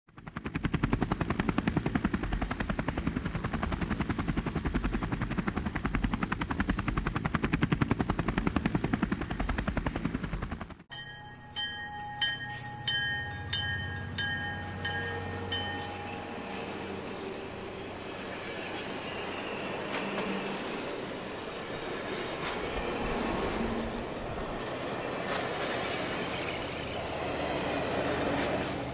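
Diesel locomotive sounds: a loud, fast-pulsing engine rumble for about the first eleven seconds, cut off suddenly. A bell then rings about six times, ringing on after each strike, over a quieter steady rumble that continues to the end.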